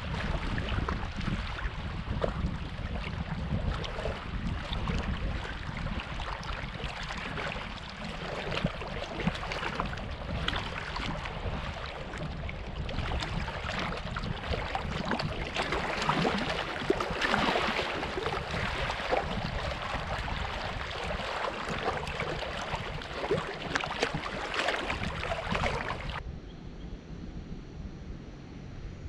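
Small waves lapping and splashing at a reservoir shoreline, with wind buffeting the microphone. About three seconds before the end the sound cuts abruptly to a quieter, duller hiss.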